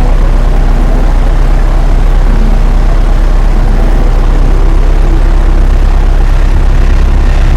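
Loud, steady, low engine-like rumble with several held low tones, from an added soundtrack rather than the drone's own motors.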